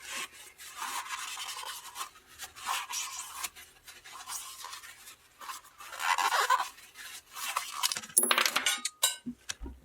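Scratchy rubbing and light clicking of small metal parts being handled on a dismantled diesel injection pump, ending in a short metallic clink and a sharp click about eight to nine seconds in.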